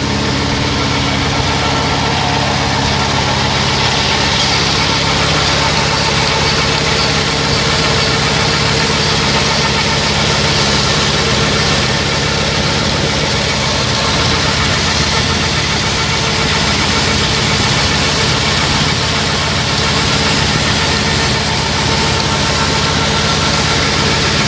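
Milking system's vacuum pump running steadily during the pre-rinse, with a strong hiss of warm water and air being sucked through the milking clusters and lines. It is a constant machine hum under the hiss, with no change in pace.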